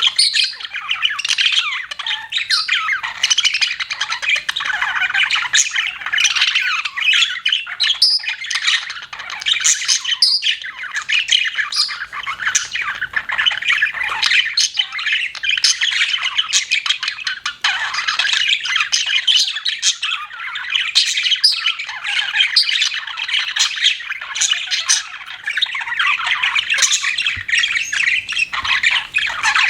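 A group of pet budgerigars chattering: a dense, continuous jumble of warbles, chirps and short squawks from several birds at once.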